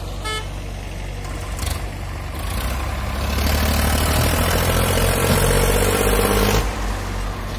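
Diesel engines of a farm tractor and a hydraulic excavator running. About three seconds in, an engine revs up and works harder for a few seconds, then drops back suddenly to a steady idle near the end.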